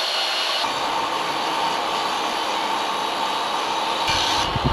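Portable table saw running at speed and ripping a long board of sapele mahogany, a steady high motor whine that fills out about half a second in as the blade cuts the wood. Near the end, low gusts of wind hit the microphone.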